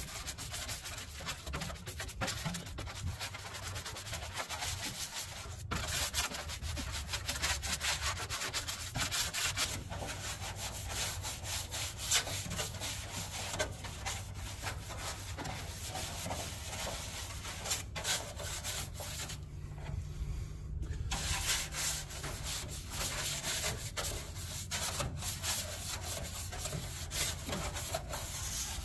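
Brush scrubbing the fibrous insulation pad under a pickup's hood: a steady run of scratchy back-and-forth strokes, with a brief pause about two-thirds of the way through.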